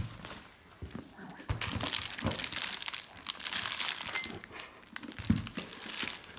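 Crinkling of a new handbag's packing, the clear plastic wrap and paper stuffing, as hands turn the bag over, with a dull knock of the bag being handled near the end.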